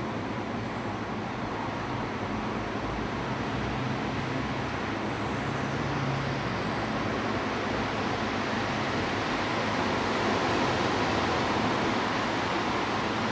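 Steady drone of idling buses: a low hum under a broad rushing noise, growing slightly louder in the second half.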